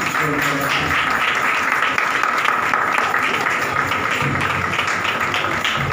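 A congregation clapping together in a steady rhythm, about three claps a second.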